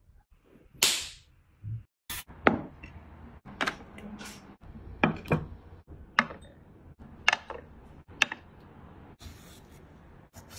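Kitchen utensils clicking and knocking while grilled food is handled and plated: about a dozen sharp, irregular taps over a faint hiss, with a longer scraping or rustling burst about a second in.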